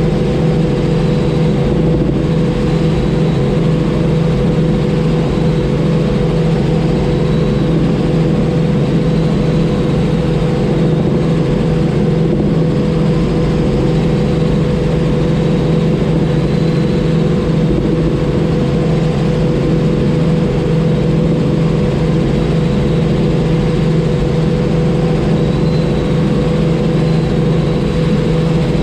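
Robinson R44 helicopter in steady cruise flight: its six-cylinder Lycoming piston engine and rotors running as an even, unchanging drone, with a faint high whine above it.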